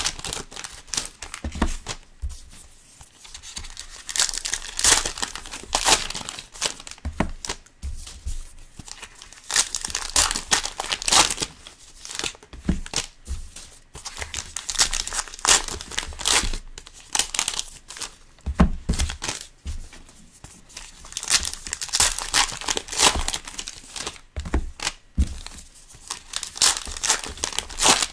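Trading-card pack wrappers being torn open and crinkled by hand: irregular crackling rustles, on and off throughout.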